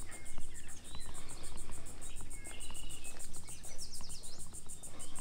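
Insects trilling in a fast, even pulse, high-pitched and continuous, with a few short bird chirps and whistles over it.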